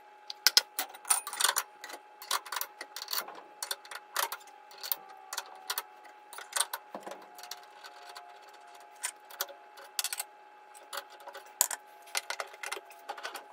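Steel dado blades, chippers and spacers being slid onto a table saw arbor: irregular metallic clicks and clinks as each piece goes on and seats. A faint steady hum runs underneath.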